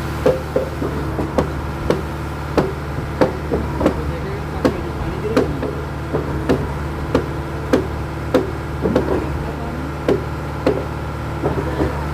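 Concrete pump running with a steady mechanical hum and sharp knocks about every half-second to second, as concrete and a cleaning ball are pushed through the pump line.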